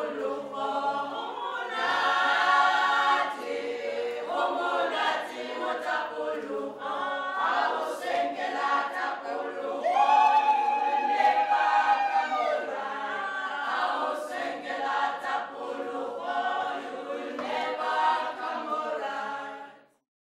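A small women's choir singing unaccompanied in harmony, with a long held note about halfway through. The singing cuts off abruptly near the end.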